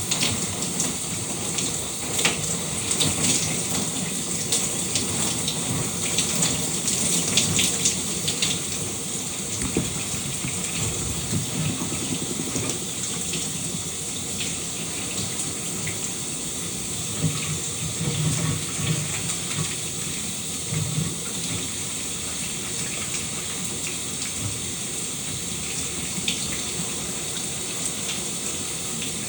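Shower running steadily, water spraying and splattering, with irregular drips and splashes that are busier in the first several seconds.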